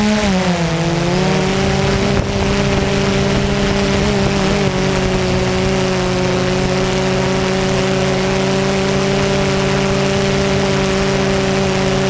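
Multirotor drone's motors and propellers humming over a steady hiss; the pitch drops over the first second, then holds level.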